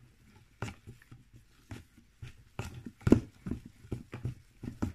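Hand-mixing a thick homemade slime mixture of shampoo, corn flour and salt. It makes a run of irregular short knocks and scrapes, the loudest about three seconds in.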